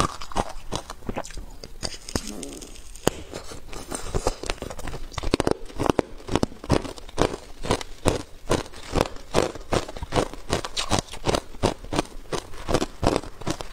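Clear ice being bitten and chewed, picked up close by a clip-on microphone: a steady run of sharp crunches, about three a second, with a quieter stretch a couple of seconds in.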